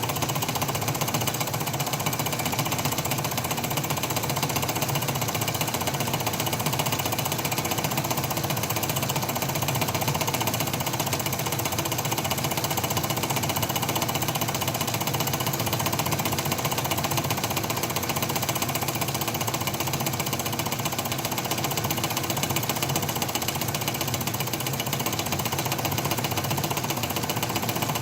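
Metal lathe running with a milling cutter in the milling attachment taking a heavy cut in metal: a steady, fast chatter of the cutter over the hum of the motor and drive.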